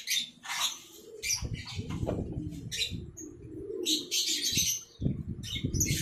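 Gusty wind rumbling on the microphone, dropping away briefly near the end, with many short, high bird chirps scattered throughout.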